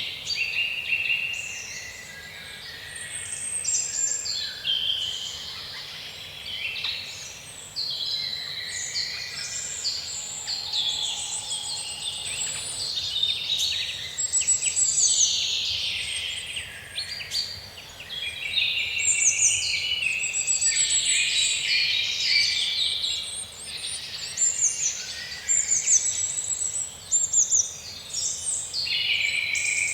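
Many small birds chirping and singing at once, a dense overlapping chorus of quick high chirps and trills.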